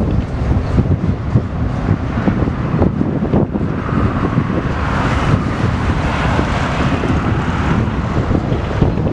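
TasRail freight train rolling past, with a steady rumble and rapid wheel-on-rail knocking, and wind buffeting the microphone. A higher hiss swells for a few seconds midway, then eases.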